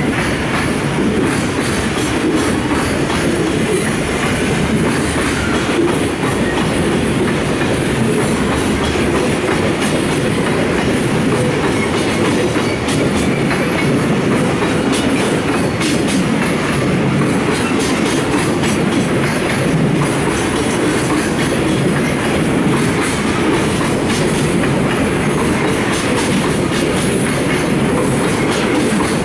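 A freight train of container flatcars rolling past at low speed after departure, a steady rumble of wheels with clickety-clack over the rail joints and a little wheel squeal.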